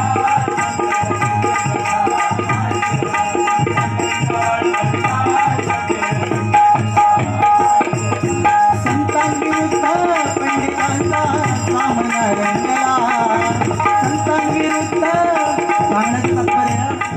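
Bhajan accompaniment: a tabla-style hand drum keeps a steady, busy rhythm under a sustained melody line that breaks and resumes. From about halfway in, a melody glides up and down over it.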